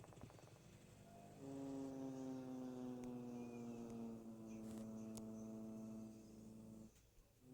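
Diplodocus sound effect: after a low buzzing rattle, one long, low call slowly falling in pitch, held for about five seconds before it stops.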